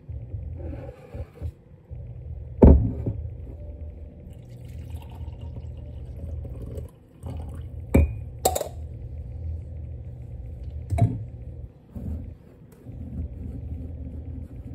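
Coffee being poured from a steam espresso maker's glass carafe into a mug, with several sharp knocks and clinks of glass, mug and steel milk pitcher, the loudest about three seconds in. A steady low rumble runs underneath.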